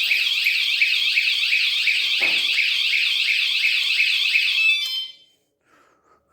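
Motion-sensor bicycle anti-theft alarm sounding its full siren, a really loud fast warble of repeating pitch sweeps, set off by touching the armed bike a second time after its first warning tone. It cuts off about five seconds in.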